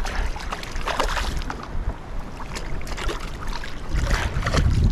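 A hooked bass splashing and thrashing at the surface beside a kayak, in a run of short, irregular splashes, with a low rumble near the end.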